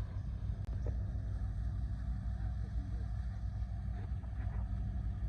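Boat engine running steadily: a low rumble with a constant hum.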